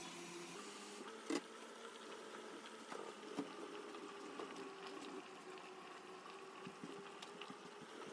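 Water at a rolling boil in a stainless steel pot with rice-flour dumplings cooking in it. It is a faint, steady bubbling with scattered sharp ticks, the loudest about a second in.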